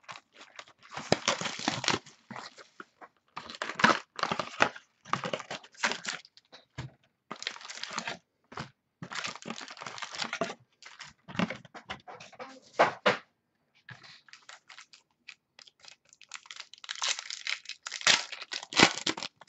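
Plastic wrapping on a sealed sports card box and its pack being torn off and crinkled by hand: a run of short rustling, tearing noises with brief pauses.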